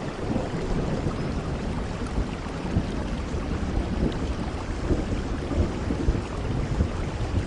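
Steady rain falling in a thunderstorm, with a low rumble of thunder underneath.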